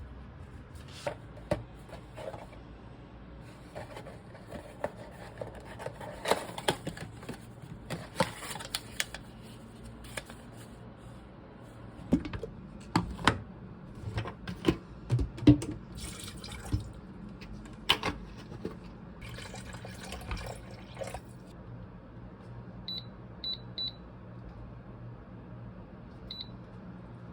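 Kitchen sink sounds: water running and pouring in short spells, with clinks and knocks of cups or dishes. Near the end come a few short, high electronic beeps.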